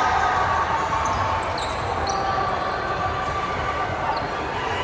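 Basketball game sounds in a gym: a basketball bouncing on the court amid background voices, in an echoing hall.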